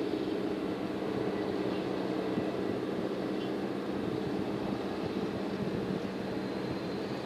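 The crane vessel's diesel engine running with a steady, even drone as it hoists a concrete wave-dissipating block.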